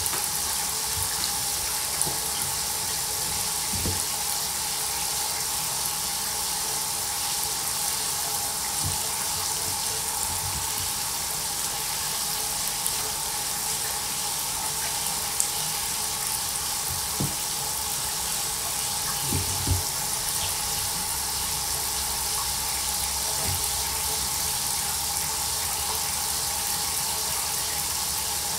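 Water running steadily from the tap into a bathtub, with a few soft knocks.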